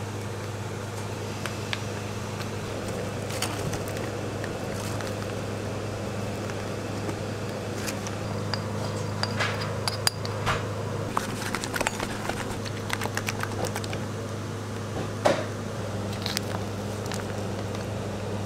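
Scattered clinks and scrapes of a spatula working against a stainless steel mixing bowl, with a sharp knock about ten seconds in and a louder one about fifteen seconds in, over a steady low hum.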